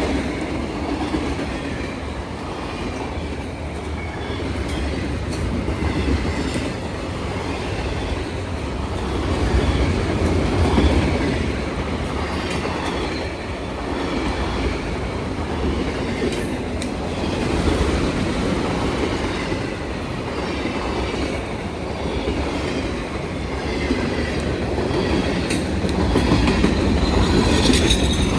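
Freight train cars rolling past, a steady rumble with wheels clicking over the rail joints and occasional clanks. A faint wheel squeal rises near the end.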